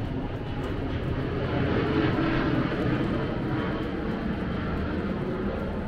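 Steady rumble of a passing vehicle, swelling about two seconds in and then easing off slightly.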